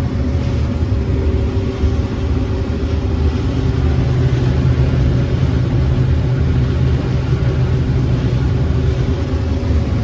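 Combine harvester running steadily under load while harvesting corn, heard from inside the cab: an even, low drone of engine and threshing machinery.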